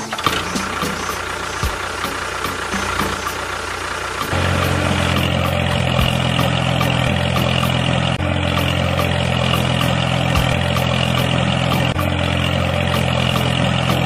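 Steady engine-like running sound. About four seconds in, a low hum joins it and holds steady, alongside a higher whine.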